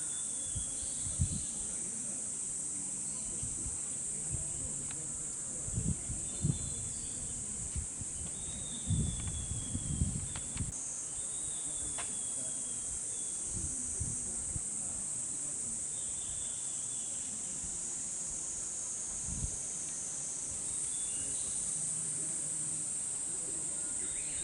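A chorus of cicadas singing: a steady, high, hissing buzz that never stops, looped from a repeated recording. Occasional low thumps sound under it, a cluster of them around the middle.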